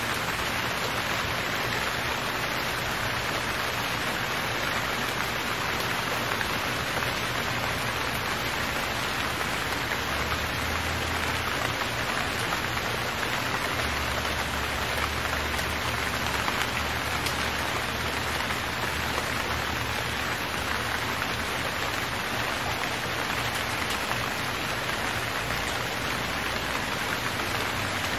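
Steady rain falling without letup, an even wash of drops, with a faint low rumble coming and going underneath.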